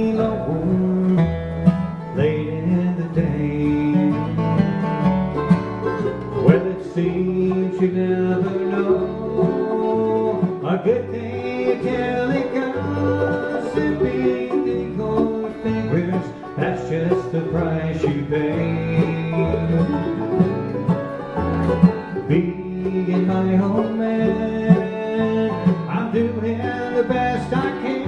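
Bluegrass band playing live: banjo, acoustic guitar, mandolin and fiddle over an upright bass keeping a steady beat.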